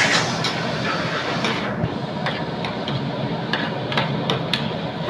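Metal ladle and spatula clicking and scraping against an aluminium frying pan as chicken pieces are stirred into a ketchup sauce: an irregular run of sharp clicks, several a second. Under them, the steady hiss of the pan cooking over a gas flame.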